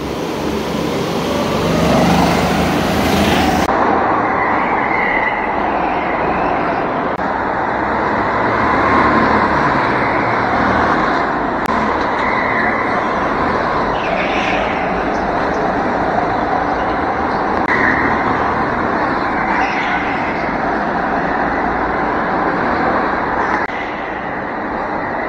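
Go-kart engines running on a kart track, loud and continuous, their pitch rising and falling with the throttle. The sound changes abruptly about four seconds in, losing its hiss.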